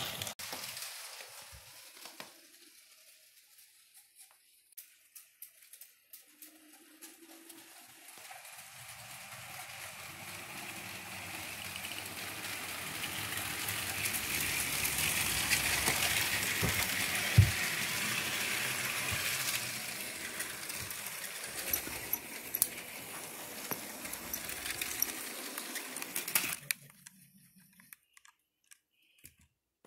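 A motorized Lego train running along plastic track on a hardwood floor, a steady rattling run that grows louder as it approaches, is loudest about halfway through as it passes close, then fades. A single sharp knock comes just after the loudest part, and a few light clicks follow near the end once the train sound has died away.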